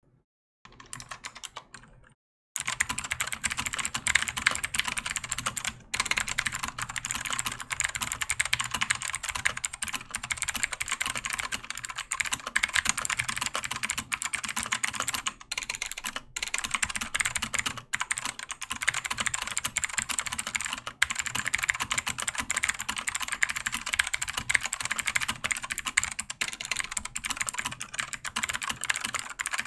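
Fast typing on a Keychron K4 keyboard in a white plastic case with LK Optical Blue switches: a dense, rapid run of keystrokes that starts about two and a half seconds in, broken by a few short pauses.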